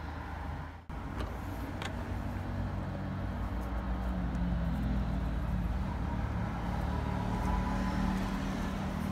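Car engine idling steadily with a low hum. A couple of light clicks come between one and two seconds in.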